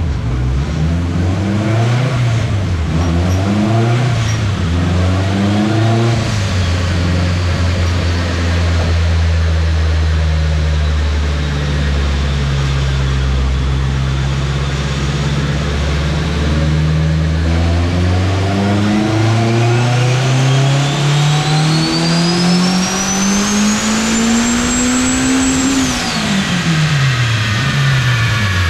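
Turbocharged Honda K-series four-cylinder in a Civic EG hatchback run on a chassis dyno: a few revs early on, then steady running for about ten seconds, then a full-throttle pull climbing steadily in pitch for about eight seconds with a high whine rising alongside it. Near the end the throttle closes sharply and the revs fall away.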